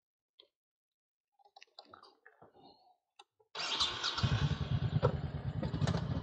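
Motorcycle engine started about three and a half seconds in, after a few faint clicks of handling, catching at once and settling into a steady, throbbing idle.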